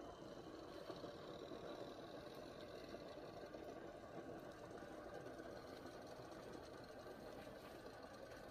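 A faint, steady mechanical hum with a few soft ticks.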